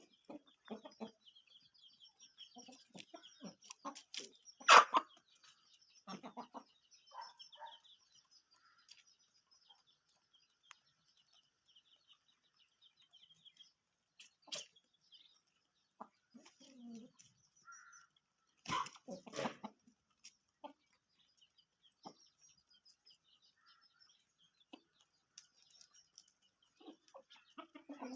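Aseel chickens peeping and clucking: a run of high peeps through the first half, with a few louder calls about five seconds in and again near nineteen seconds.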